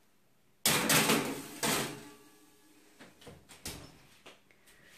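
A metal sheet pan slides onto the wire oven rack with a scraping metallic clatter and a faint ring. The oven door shuts just after, and a few light knocks follow.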